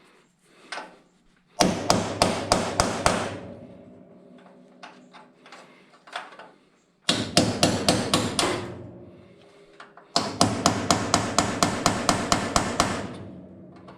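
Three quick runs of hammer blows on steel, about five a second, the last run the longest, with the metal ringing under the strikes.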